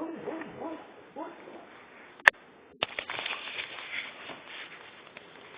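Boxer dog sleep-talking: a run of short, pitched, voice-like murmurs in the first second and a half. A sharp click comes a little over two seconds in and is the loudest sound, followed by a longer noisy stretch.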